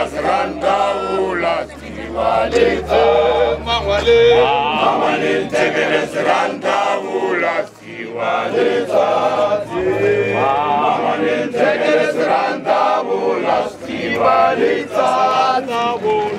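Men's choir of Zion Christian Church members singing a mokhukhu hymn together in full chorus, unaccompanied.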